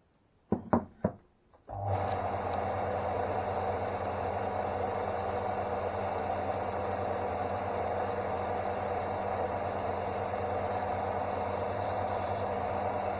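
A few sharp knocks, then a Draper Storm Force belt and disc sander switches on about two seconds in and runs steadily with a constant motor hum. A brief faint high hiss comes near the end.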